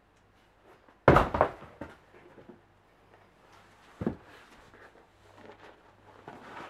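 A trainer being handled and pulled on: a loud thump with a quick rustling scuff about a second in, a smaller knock around four seconds in, and soft rustling in between, over a faint low hum.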